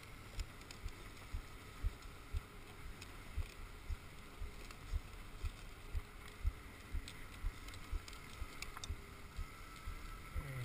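Dog sled runners sliding over packed snow with a steady hiss, and low knocks about twice a second as the sled jolts along the rough trail.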